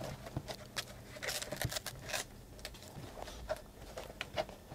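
Handling noise as a padded fabric-covered foam mask is pressed and worked into the plastic frame of DJI FPV goggles: soft rustling and scuffing with many small clicks and taps, busiest between about one and two seconds in.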